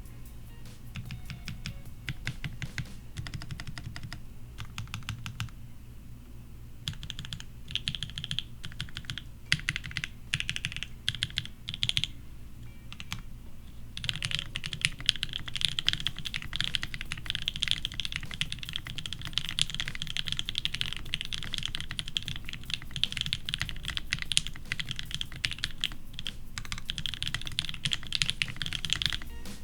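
Typing on a custom mechanical keyboard with hand-lubed, filmed TKC Banana Splits linear switches, a POM plate and Cherry-profile PBT keycaps. It starts in short runs of keystrokes, pauses briefly about halfway through, then becomes fast, continuous typing.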